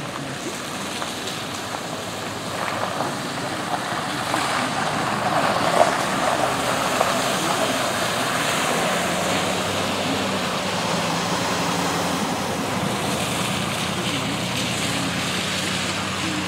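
Cars and pickup trucks passing on a wet, partly flooded road, their tyres hissing and swishing through standing water; the hiss swells about four to eight seconds in. A steady low engine hum joins about nine seconds in.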